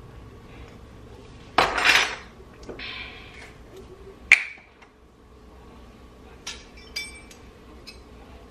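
Measuring spoon and glass jars knocking and clinking while pepper is added to a jar of dressing: a short scratchy clatter, a softer rattle, then one sharp clink about four seconds in, followed by a couple of light ticks.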